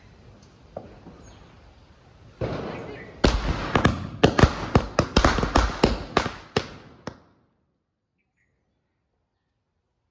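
A short string of small firecrackers going off. A fizzing hiss starts about two and a half seconds in, then over a dozen sharp bangs crackle in quick, uneven succession for about four seconds and stop.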